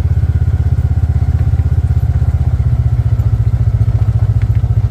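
Side-by-side utility vehicle's engine running steadily at low speed with a fast, even pulse, following a walking horse.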